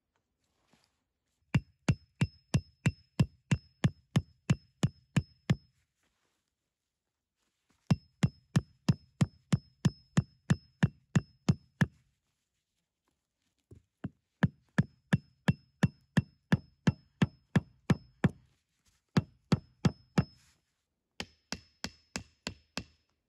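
Rapid, evenly paced blows of a hand tool on wood, about three a second, in several runs with short pauses between them, each blow carrying a faint high ring.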